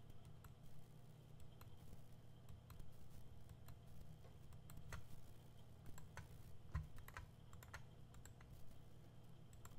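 Faint, scattered clicks of a computer keyboard and mouse, over a steady low electrical hum, with one soft low thump about two-thirds of the way through.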